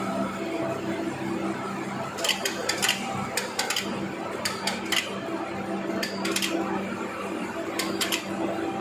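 Steady electrical hum of industrial machinery, with irregular sharp metallic clanks and clicks in small clusters from about two seconds in.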